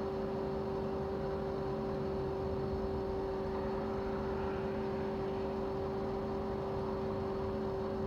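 A steady machine hum holding a few fixed tones over a level hiss, unchanging throughout.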